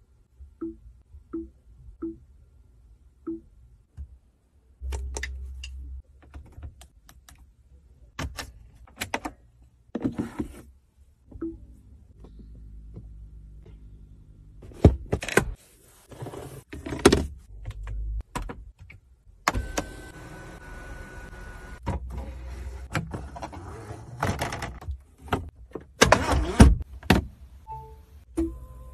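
Interior controls of a Hongqi E-HS9 being worked: a run of short, low beeps in the first few seconds, then scattered clicks and thunks. About two-thirds of the way in, an electric motor whirs steadily for a couple of seconds.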